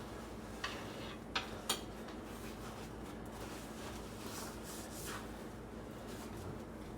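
Light clicks and clinks of dishes or utensils being handled, three sharp ones close together in the first two seconds and a few fainter ones later, over a steady low hum.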